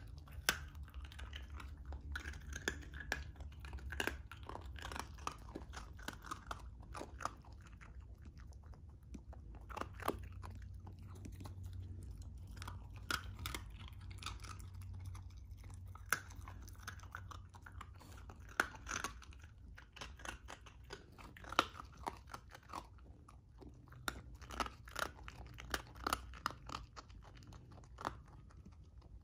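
Shiba Inu puppy biting and chewing a hard baked dog biscuit held in a hand, with irregular crisp crunches every second or so.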